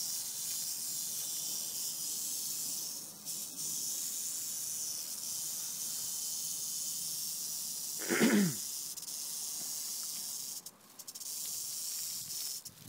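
Rattlesnake rattling its tail: a continuous high, hissing buzz, the defensive warning of a disturbed rattler. It breaks off briefly a few times. A short, louder, lower sound cuts in about eight seconds in.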